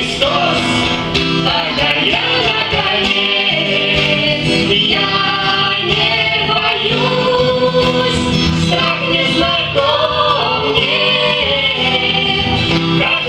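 A family of adults and children singing a Christian children's song together, with guitar accompaniment.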